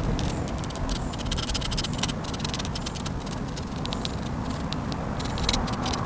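Pen nib scratching on paper in quick runs of short hatching strokes, with brief pauses between runs, over a steady low background rumble.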